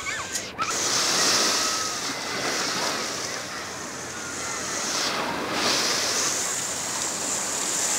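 Small waves breaking and washing up on a sandy beach, swelling and easing, with faint voices of bathers in the background.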